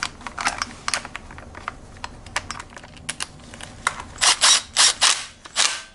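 Light clicks and knocks of a plastic engine cooling shroud being handled and seated on a scooter engine. About four seconds in come five short bursts from a cordless power driver running in the shroud's 8 mm bolts.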